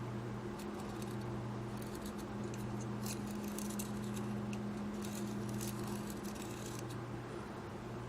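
Small metal parts of an electronic control box being handled during disassembly, giving scattered light clicks and taps over a steady low hum.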